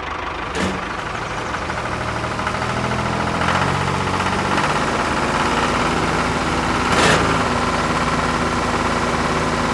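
Miniature tractor engine running steadily, a little louder from about three seconds in, with one sharp knock about seven seconds in.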